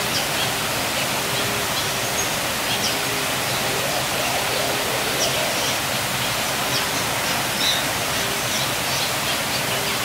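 Steady rushing of running water, with faint high bird chirps and a short low note that repeats about every two-thirds of a second.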